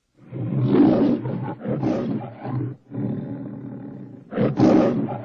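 Metro-Goldwyn-Mayer logo lion roaring: a run of about five roars and growls, the loudest about a second in and again near the end.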